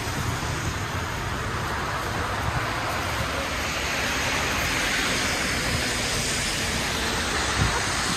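Wind buffeting a handheld phone's microphone outdoors in a snowstorm: a steady rushing hiss with an uneven low rumble.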